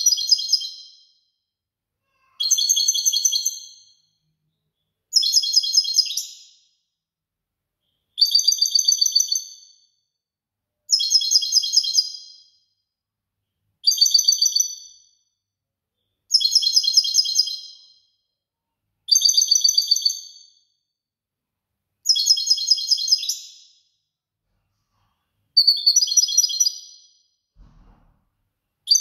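European goldfinch singing, repeating the same short, high, rapidly trilled phrase over and over, about every two and a half to three seconds.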